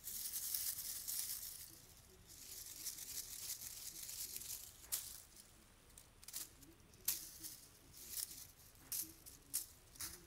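Shiny curled-ribbon cat toy rustling and crinkling as it is shaken and batted by a kitten's paws: a long stretch of rustling over the first half, then short separate crackles about once a second.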